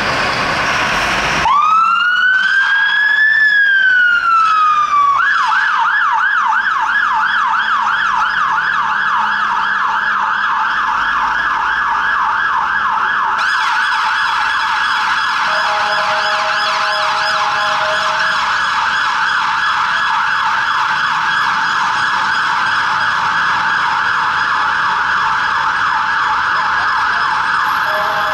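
London Fire Brigade fire engine siren starting up on a turnout. It gives one long wail, rising and then falling, then switches to a fast, continuous yelp. A second, steadier siren tone joins about halfway through, and there is engine and traffic noise for the first second and a half.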